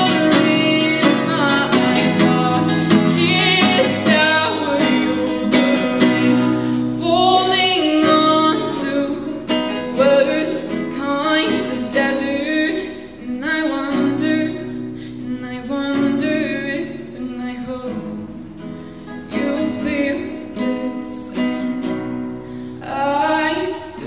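A teenage girl singing with a nylon-string classical guitar that she strums steadily; the playing grows a little softer in the second half.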